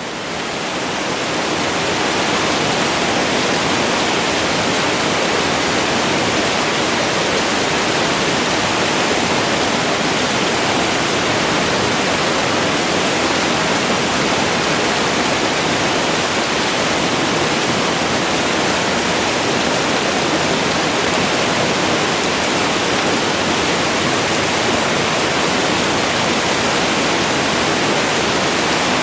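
Waterfall: falling water making a steady, even rush of noise, fading in over the first two seconds.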